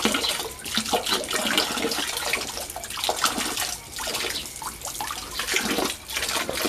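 Water pouring from a pipe into a shallow inflatable paddling pool, with irregular splashing as a child wades and moves through the water.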